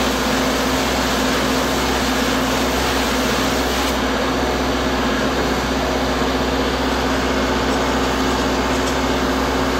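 Spray-foam rig running: a PMC AP-2 spray gun hissing steadily as it sprays closed-cell soy foam insulation, over a constant machine hum. The sharpest part of the hiss thins slightly about four seconds in.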